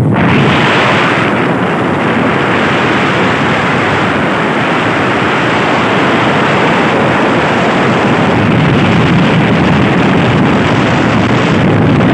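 Loud, steady wind noise buffeting the microphone while riding a motorcycle at road speed, an even rush with no letup.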